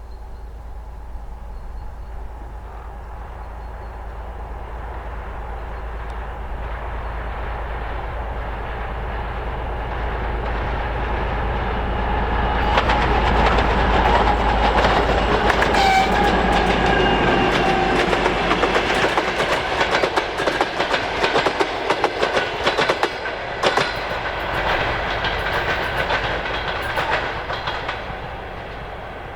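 M62 diesel locomotive with its two-stroke V12 diesel engine passing at the head of a passenger train. The engine sound grows to its loudest about halfway through. Then the carriage wheels click rapidly over the rail joints as the coaches go by, fading near the end.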